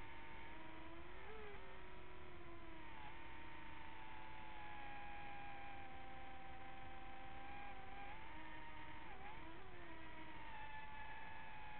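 Electric motors of a small remote-controlled aircraft whining in flight, several pitches side by side that dip and rise separately as the throttle shifts, over a steady hiss.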